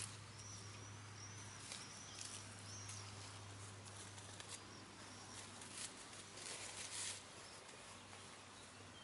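Brown hens pecking and scratching in grass: faint rustling with scattered soft clicks, a little busier about six to seven seconds in. Small high chirps sound in the first few seconds, over a low steady hum.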